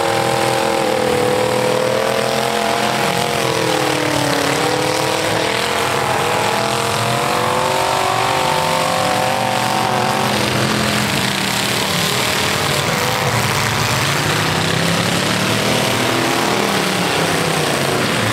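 V8 engines of several demolition derby cars revving hard, their pitch rising and falling again and again. After about ten seconds the note drops lower and steadier.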